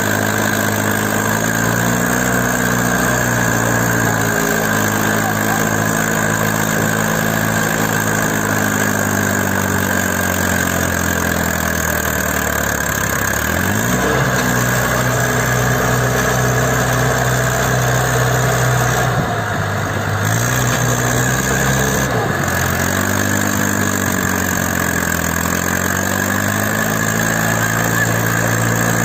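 Mahindra Arjun 555 DI tractor diesel engines running. The engine speed rises sharply about halfway through, falls off, then dips and picks up again near the end, as when the throttle is opened and eased during a pull.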